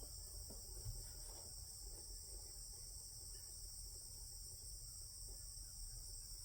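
Faint, steady, high-pitched insect chorus, an even trilling with no breaks.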